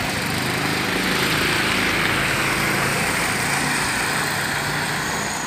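Motor vehicle engine running, with a rushing hiss that swells over the first two seconds and then eases off.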